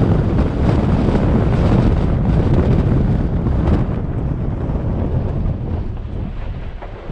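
Wind buffeting the microphone of a hood-mounted camera, mixed with the rumble of a Jeep driving over a gravel dirt track. The noise grows quieter from about four seconds in.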